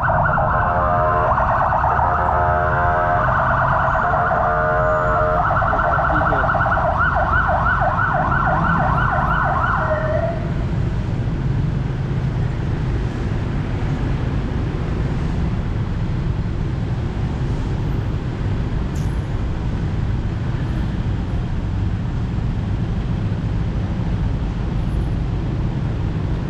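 Rescue ambulance van's electronic siren sounding as it passes, its pattern switching partway through to a faster warble; it stops about ten seconds in, leaving steady street traffic noise.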